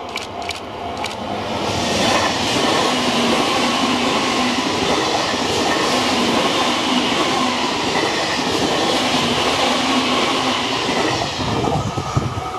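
E351-series Super Azusa limited express, an electric multiple unit, passing close at speed: a steady rush of wheels on rail that swells about two seconds in, holds as the cars go by, and dies away near the end.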